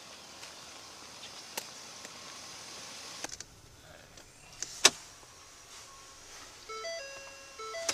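A person getting into a Ford pickup's cab. There are door and latch clicks about three seconds in, after which the outdoor noise falls away, then a single sharp clunk about five seconds in. Near the end comes a short run of electronic beeps stepping between pitches.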